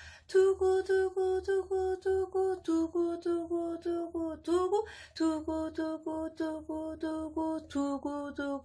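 Ocarina playing repeated tongued eighth notes, about four a second, using 'du-gu' double tonguing. Each pitch repeats for about two seconds before stepping down a note, in a descending scale exercise, with a short break for breath about halfway.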